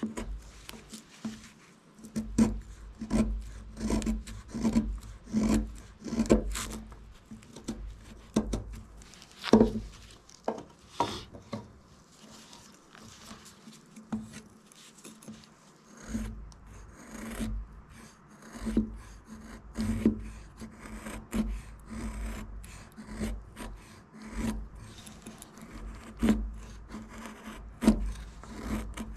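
Folding knife blade carving wood: short scraping strokes, about two a second at first, then sparser and weaker.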